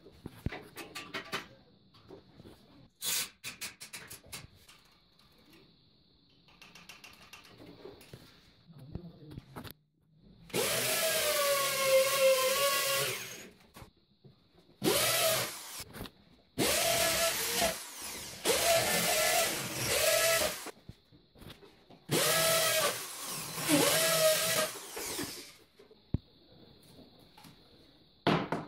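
Corded hammer drill with a masonry bit boring holes into a concrete ceiling, running in five loud bursts of one to three seconds each, the motor's pitch shifting as each burst starts. Light clicks and handling knocks come first, in the first third.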